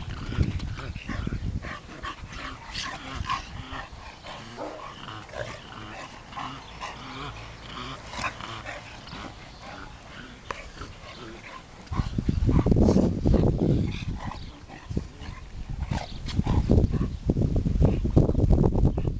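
Dogs at play, giving short yips and whines. Louder low noise comes in about twelve seconds in and again near the end.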